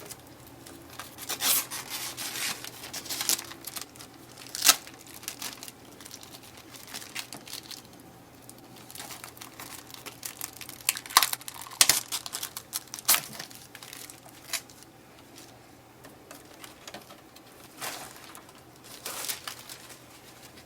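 Protective plastic film and packing tape being peeled and crumpled off a new printer's glossy casing: irregular crinkling and tearing, with several sharper rips.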